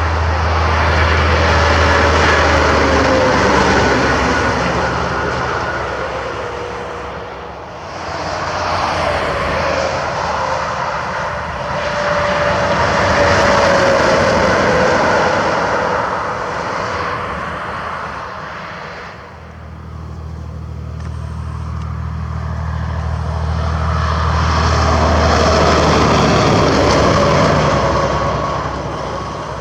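Three heavy vehicles, likely semi-trucks, pass at highway speed one after another. Each is a swell of engine and tyre noise that builds, peaks and fades, and its pitch falls as it goes by.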